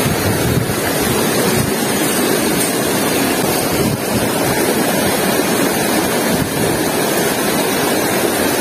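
River water flowing fast over rocks: a steady rushing noise.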